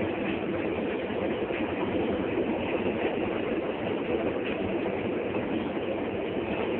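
Vehicle driving off-road, with steady engine and road noise.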